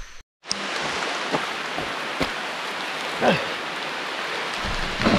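Heavy rain falling steadily, an even hiss that starts abruptly a moment in, with a few short knocks or drips through it, the loudest about three seconds in.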